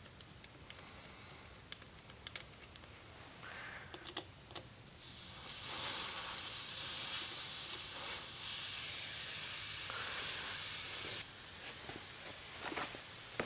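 A few light handling clicks, then air hissing steadily out of a tire valve as the tire is let down. About five seconds in the hiss starts, and near the end it drops suddenly to a lower level.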